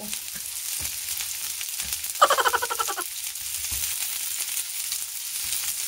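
Red bell pepper strips and onion sizzling in hot oil in a nonstick frying pan, stirred with a wooden spatula that scrapes and taps against the pan. A little over two seconds in, a brief rapidly pulsing pitched sound lasts about a second and is the loudest moment.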